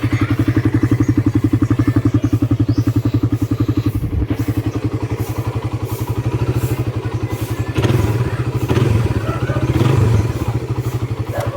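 Suzuki Raider 150 carburetor model's single-cylinder four-stroke engine running through its stock exhaust, a steady, evenly pulsing idle. It gets louder and rougher for a couple of seconds near the end.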